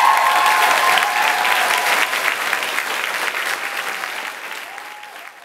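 Audience applauding, the clapping dying away toward the end. The music's last held note fades out under the applause in the first second or so.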